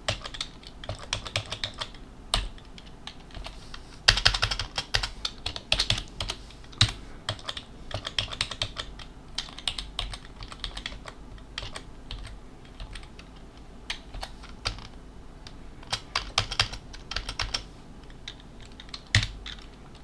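Typing on a computer keyboard: irregular runs of key clicks with short pauses between them, as text is entered in a code editor.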